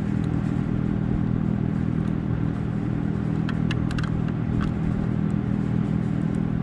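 Honda VTX1300's V-twin engine idling steadily, with a few light clicks about three and a half to four and a half seconds in.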